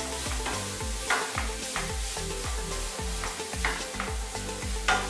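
Grated carrot sizzling in ghee in a nonstick frying pan, stirred and scraped with a spatula while it sautés over low heat. Soft background music with a steady beat runs underneath.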